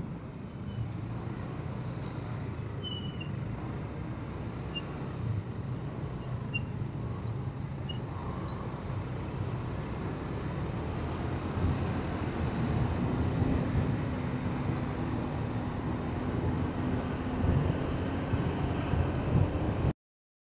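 Motorcycle engine running at low speed in slow city traffic, with the engines and road noise of the vehicles around it. The sound cuts off abruptly near the end.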